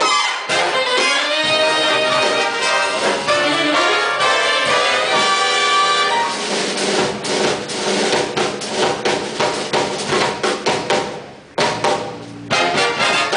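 Live big-band jazz from an Army band: trumpets and trombones playing over a drum kit. About halfway in, the horns drop back and the drums carry the beat, with a short break near the end before the band comes back in.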